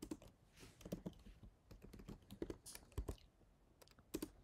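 Faint typing on a computer keyboard: irregular key clicks as a line of code is typed.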